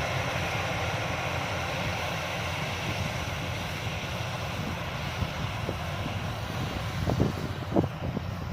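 Yanmar YH-850 combine harvester running steadily, its engine and threshing machinery making a continuous drone, with a few short low knocks near the end.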